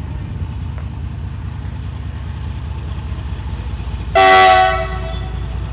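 A vehicle horn sounds once, loud and short, about four seconds in, over a steady low rumble.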